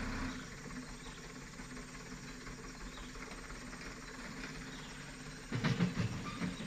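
Light diesel truck's engine running low as the loaded truck crawls through mud, with a louder surge near the end. Insects buzz steadily in the background.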